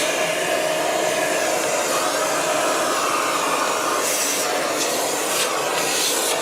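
Steady whir of an electric air-moving appliance running continuously: a rush of air over a steady motor tone.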